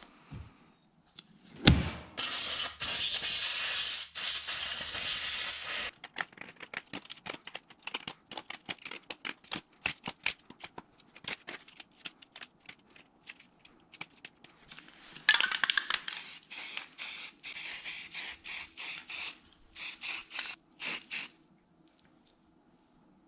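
Pressurised spray hissing in two long bursts, the second broken into short strokes, with a run of quick rattling clicks between them. A single thump comes just before the first burst.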